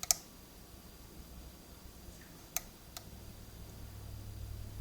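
Small sharp clicks of a dimple pick working the pins of a Goal D9 dimple lock held under tension: one click right at the start, then two fainter ones about two and a half and three seconds in.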